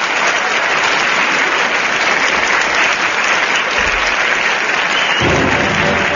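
Studio audience applauding after a musical number, with band music starting up under the applause about five seconds in.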